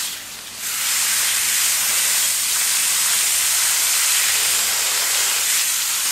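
Garden hose spray wand on shower setting spraying water onto a ficus root ball to wash the soil out of the roots: a steady hiss of spray spattering on roots. The spray drops off briefly at the very start and comes back strongly about half a second in.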